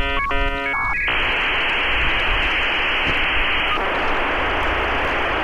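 A short cluster of stacked electronic beep tones, then a steady static hiss.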